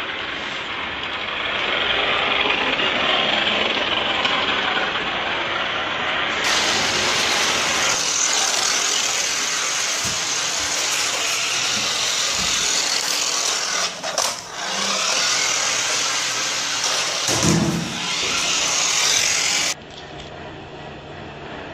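Small electric motors of toy remote-control cars whirring steadily as they drive, with a brief louder thump about three-quarters of the way through.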